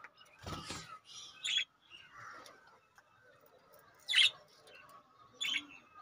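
Budgerigars chirping: three short, sharp calls, about a second and a half in, around four seconds in (the loudest) and just before the end, with softer chatter between.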